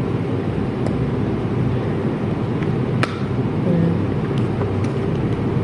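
Steady low background rumble, like distant traffic, with a single sharp click about three seconds in and a few faint ticks.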